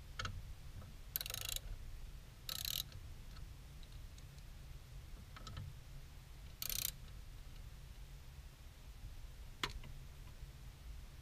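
Hands working on parts in a car's engine bay: scattered light clicks and three short hissing rustles, over a low steady rumble.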